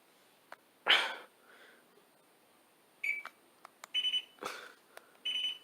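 A short rustle about a second in, then a few short, high electronic beeps, the last two about a second apart near the end, with small clicks between them.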